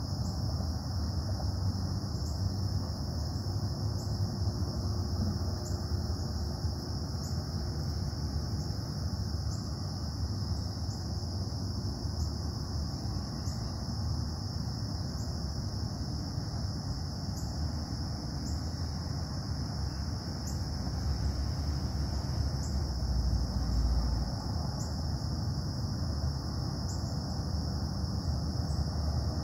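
Steady low industrial rumble from a nearby foundry, swelling slightly near the end. Over it a continuous high insect trill and a faint high chirp about every second and a half.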